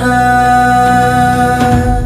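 Arabic devotional song (nasheed): a voice holds one long, steady sung note at the end of a line, over a steady low backing.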